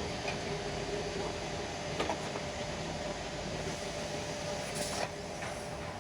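CNC six-sided drilling machine running: a steady mechanical hum with a few sharp clicks and a short hiss a little before five seconds in.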